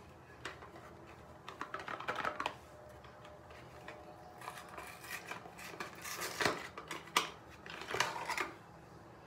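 A bar of charcoal soap being handled and taken out of its cardboard box: scattered rustles, scrapes and light clicks of card and fingers. There is a cluster of louder ones around two seconds in and again near the end.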